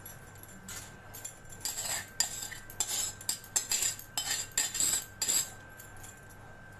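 Steel pan held in a pan gripper knocking and scraping against a steel mesh strainer in a run of irregular metallic clinks and clanks, as the last boiled corn kernels are tipped out to drain. The clanks start about a second in and stop about a second before the end.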